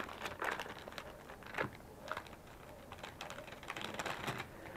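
Clear plastic packaging bag crinkling and rustling in the hands, in irregular small crackles and ticks.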